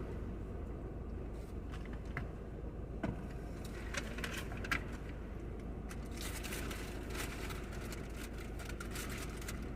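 Paper food wrapper crinkling as a taco is unwrapped and handled: a few scattered crinkles and clicks, then a longer stretch of rustling past the middle, over a steady low hum.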